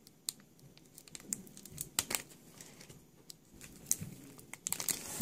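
Foil wrapper of a Pokémon XY Steam Siege booster pack crinkling and crackling in the hands as it is pulled at to be torn open, a stubborn pack that resists opening. The crackles are sparse at first and grow busier and louder near the end.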